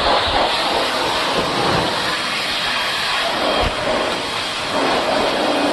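Steady rushing hiss of a high-pressure water spray washing air conditioner parts, with a faint low hum joining about five seconds in.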